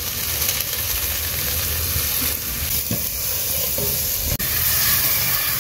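Tomato, onion and pepper sauce sizzling steadily in an aluminium pot while a wooden spoon stirs it.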